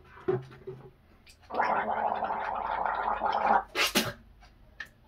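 A boy gargling a mouthful of mouthwash for about two seconds, then spitting it into the sink twice in quick succession.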